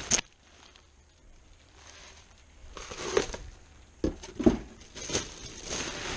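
Bubble wrap crinkling and rustling as it is pulled off cookware, with a few sharp knocks, one right at the start and several more in the second half.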